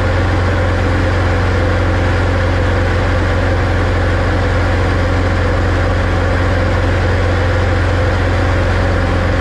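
Single-engine light aircraft's piston engine and propeller running steadily in flight, heard from inside the cabin as an unchanging loud, low drone.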